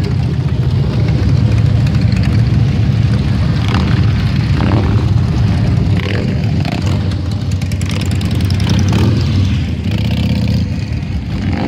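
Engines of a procession of cruiser and touring motorcycles, one with a sidecar, running steadily as the bikes ride past one after another at parade pace.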